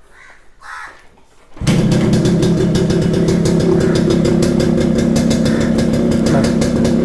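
Yamaha RX 100's two-stroke single-cylinder engine starting about a second and a half in, catching at once and then running steadily with a rapid, even beat.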